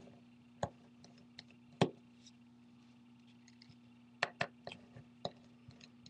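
Small scattered clicks and taps of a Phillips #0 screwdriver working the tiny screws of the EMI shield inside an iPhone 4S, about half a dozen in all, with a faint steady hum behind.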